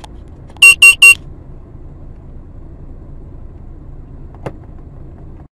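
Three short, loud electronic beeps in quick succession over a steady low rumble of a car in motion; the sound cuts off abruptly near the end.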